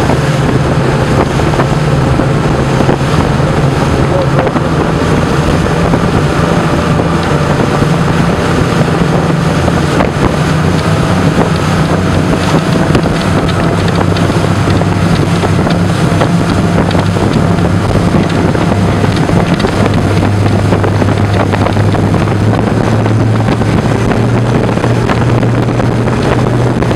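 Twin Mercury Verado 350 supercharged six-cylinder outboards running at speed, a steady low drone over the rush of the wake and wind on the microphone. The engine note settles a little lower about halfway through.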